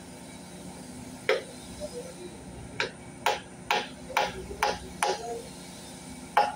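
Sharp metal-on-metal knocks with a short ring, a hand tool striking the heavy metal unit being fitted: one about a second in, then a run of six roughly half a second apart, and one more near the end.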